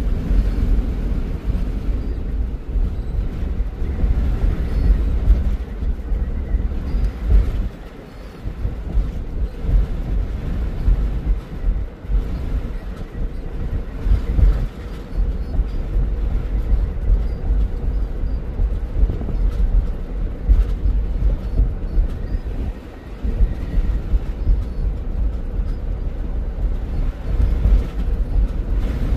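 A vehicle driving along a concrete highway: a steady low rumble of tyre and engine noise, dipping briefly in level twice.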